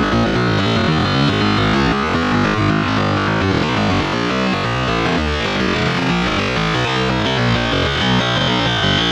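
Background music playing steadily at a loud level.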